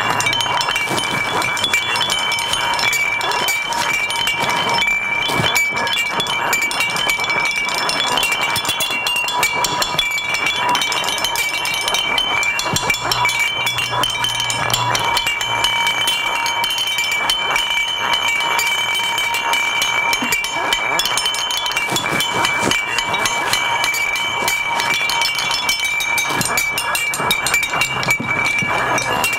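Recyclable household waste, such as cans and plastic and paper packaging, rattled, shaken and struck by hand in a dense, unbroken clatter of clinks and clicks, over a few steady high ringing tones.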